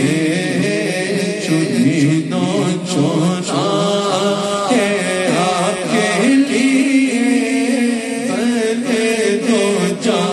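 A man's voice chanting a devotional recitation into a microphone, melodic and drawn out, with long held notes that bend up and down in pitch.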